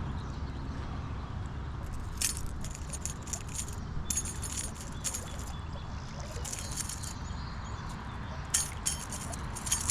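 Light metallic clinking and jingling in short scattered bursts, over a steady low rumble.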